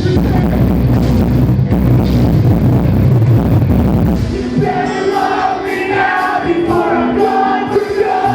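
A live rock band playing loud in a hall, heavy with bass and drums; about four seconds in the bass and drums drop away, leaving held sung notes.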